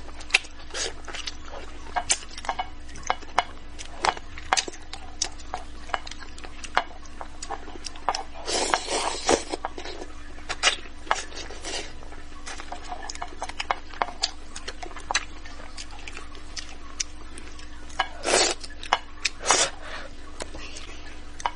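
Close-up eating sounds: wooden chopsticks clicking against a plate and a small steel bowl, with chewing and sucking on pieces of spicy braised fish. Two longer, louder mouth sounds come about nine seconds in and again near the end.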